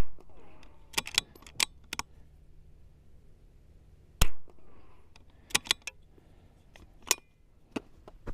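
.22 LR bolt-action rifle firing two shots about four seconds apart, the first at the very start. Between and after the shots, the bolt is worked in a few quick metallic clicks.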